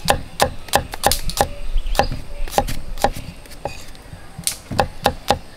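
Chef's knife slicing garlic cloves, its blade knocking on a wooden chopping board at about four strokes a second. The chopping pauses about three seconds in and starts again near the end.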